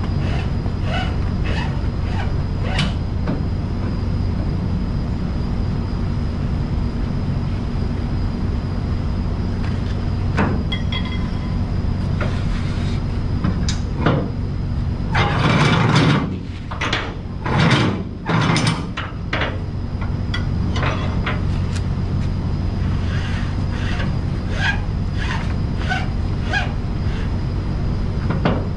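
Flatbed cargo straps and their winch hardware being worked by hand: scattered clicks and rattles, with two louder noisy rushes about halfway through, over a steady low hum of an idling truck engine.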